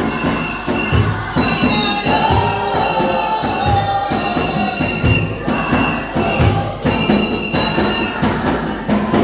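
Church congregation singing together over a steady low drum beat, with fast shaken percussion on top.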